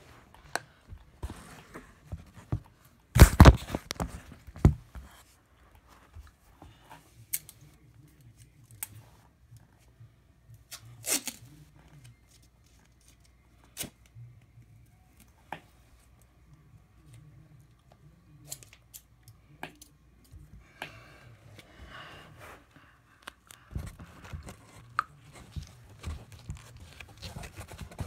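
Cardboard being handled and cut with a pair of scissors: scattered clicks, knocks and rustles. The loudest is a short burst about three seconds in.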